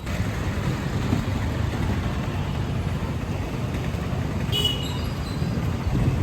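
Road traffic: a steady low rumble of passing vehicles, with a short high-pitched tone a little past the middle.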